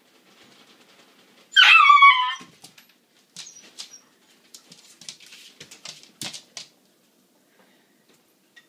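Siberian husky puppy giving one loud, wavering high-pitched whine-howl, under a second long, about a second and a half in, as she waits impatiently to be fed. Scattered light clicks and scuffles follow.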